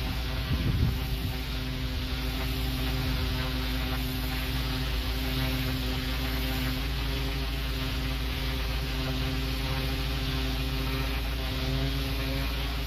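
Pressure washer running steadily: a continuous engine drone under the hiss of the high-pressure jet spraying onto block paving.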